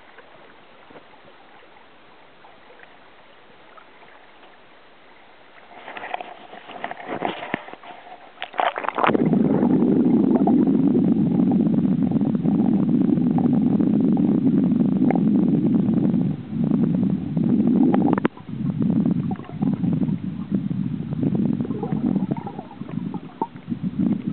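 Faint hiss, then splashing and knocking as the camera breaks into the water, and from about nine seconds in the loud, dull, steady rumble of river current heard from underwater, with brief dips and a few knocks.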